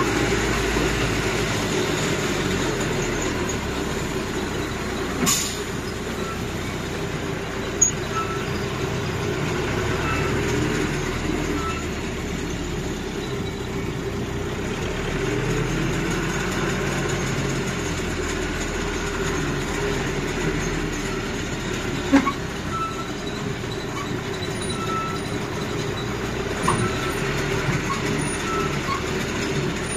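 Tourist land train's engine running steadily as it tows its carriages along the road, heard from on board, with a few sharp knocks and rattles and some faint short beeps in the second half.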